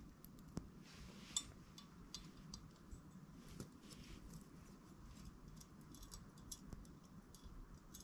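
Faint clicks and light scrapes of small camping-stove gear being handled by hand, with two sharper clicks in the first second and a half.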